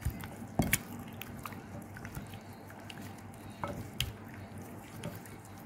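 Wet squelching and squishing of raw chicken legs being kneaded by rubber-gloved hands in a glass bowl of thick spiced marinade, with irregular soft clicks and slaps.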